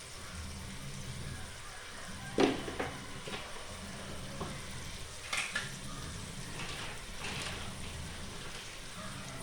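Onion and tomato masala sizzling in a pan on low heat, with a steady low hum underneath. A spoon knocks and scrapes against the pan a few times as spice powder is added and stirred; the sharpest knock comes about two and a half seconds in.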